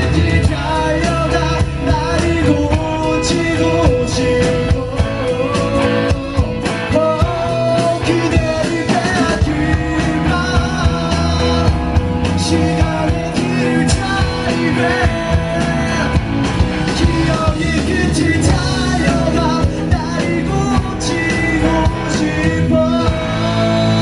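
A live rock band playing loudly, with drums and bass under a melody line that bends in pitch over the top.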